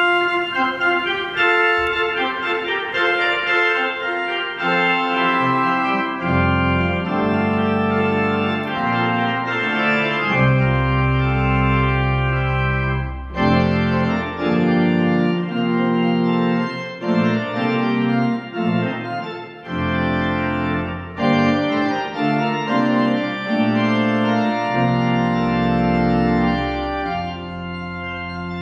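Organ playing sustained chords, with low bass notes joining about six seconds in.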